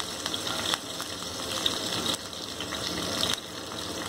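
Chopped garlic and curry leaves sizzling in hot oil in a kadai: a steady hiss with many small pops.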